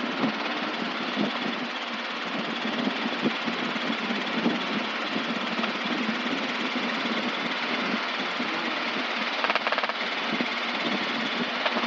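Robinson R22 helicopter in flight, heard from inside the cockpit: the steady drone of its four-cylinder Lycoming piston engine and main rotor.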